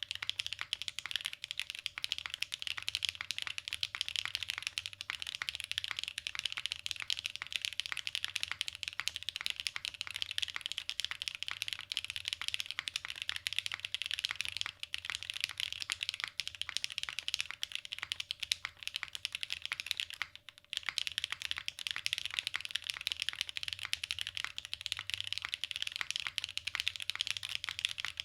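Fast, continuous typing on a Matrix 8XV 3.0 mechanical keyboard. It is gasket-mounted with a stock aluminium plate and no dampening, fitted with Novelkeys Cream Dreams switches lubed with 205g0 on Geon 65g springs and GMK Striker keycaps. Dense, unbroken keystrokes, with one short pause about twenty seconds in.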